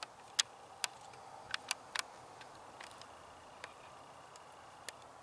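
Irregular sharp clicks and ticks, about nine in all, some coming in quick pairs around the middle, with the loudest one about half a second in.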